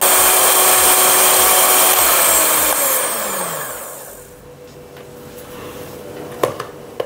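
Electric hand mixer beating condensed milk and butter in a glass bowl. It runs at full speed, then slows and fades out over about two seconds, starting about two seconds in. Two short knocks near the end.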